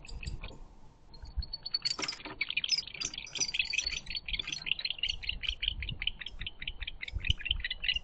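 Barn owl giving a fast, even run of short chittering calls, about six a second, starting about a second in, with a brief harsh burst near two seconds.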